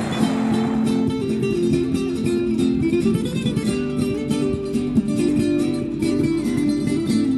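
Background music: an acoustic guitar playing a lively plucked and strummed tune. The noise of a blender fades out under it in the first second.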